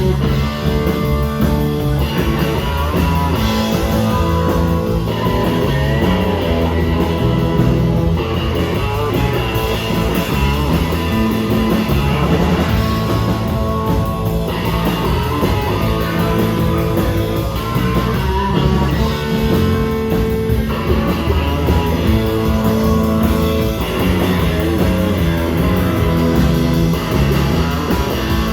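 A rock band playing loudly without pause: electric guitar through a 1959 Fender Bassman amplifier, over a drum kit keeping a steady beat.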